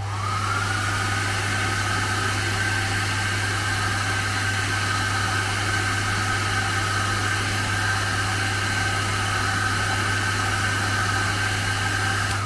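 Xiaomi Mi Ionic H300 hair dryer switched on: its motor spins up with a whine that rises over the first half second, then runs steadily with a rush of air. It cuts off near the end as it is switched off.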